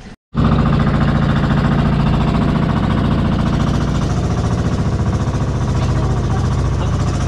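The engine of a motorized bangka (outrigger boat) running at a steady speed, a loud rapid pounding with a deep hum underneath. It cuts in abruptly just after the start.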